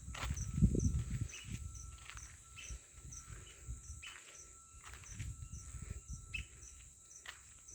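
Evening insect chorus: a steady high-pitched buzz with regular high chirps repeating a couple of times a second, and a low rumble about a second in.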